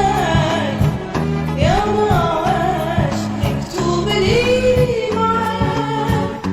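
Song with a woman singing held, bending notes over instrumental accompaniment with a steady beat.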